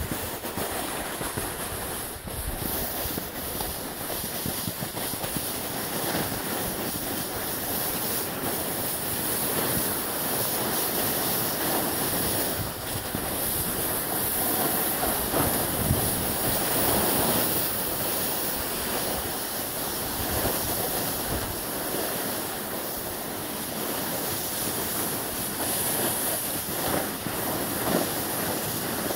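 Snowboard sliding and scraping over packed snow in a steady hiss, with wind noise on the microphone.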